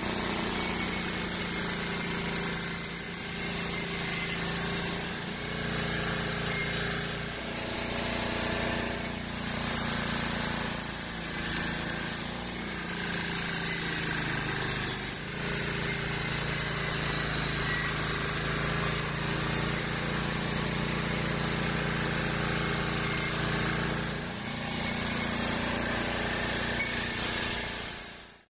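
Homemade band sawmill running, its blade cutting through a wadang log: a steady machine hum under a hissing rasp of sawing, dipping briefly several times.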